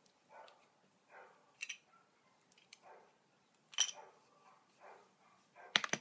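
Repeated short animal calls, about one a second, with a few sharp clicks between them, the loudest click near the end.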